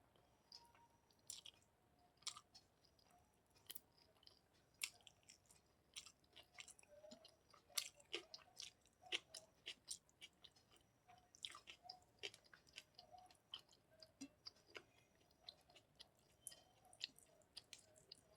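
Close-miked chewing of food, with many short, wet mouth clicks and smacks coming irregularly, several a second.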